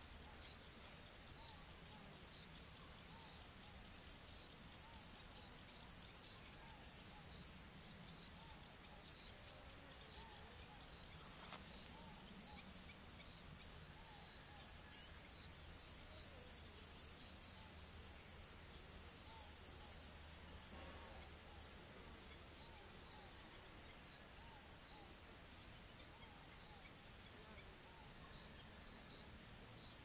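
Crickets and other insects chirping in a steady chorus, with a continuous high-pitched insect buzz that cuts off near the end. Faint bird calls repeat underneath.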